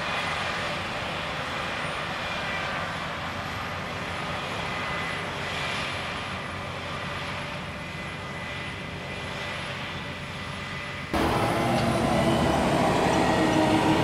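CLAAS Lexion 7500 combine harvester running: a steady engine and machinery hum that turns suddenly louder and closer about eleven seconds in.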